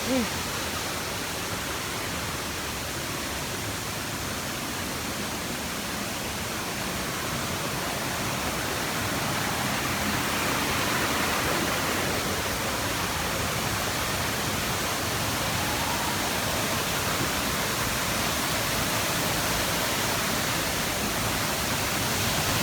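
Steady rush of a tall waterfall, an even roar of falling water that grows somewhat louder about ten seconds in.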